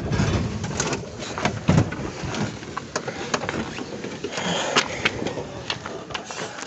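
Scattered light clicks and knocks from hands working an old car's door and window glass, over a faint hiss of street noise.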